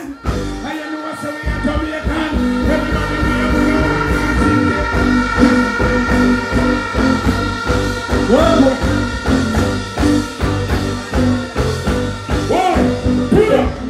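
Live band playing an upbeat dancehall backing with a steady beat and held chords. A voice sings out briefly around the middle and again near the end.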